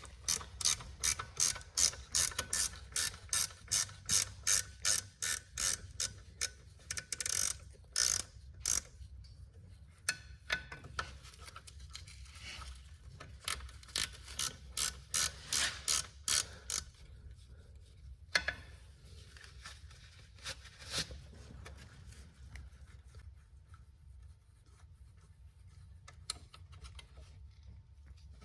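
Hand ratchet wrench clicking in steady back-and-forth strokes, about two clicks a second, as it undoes a brake splash-guard bolt. The clicking stops about 17 seconds in, and only a few scattered clicks follow.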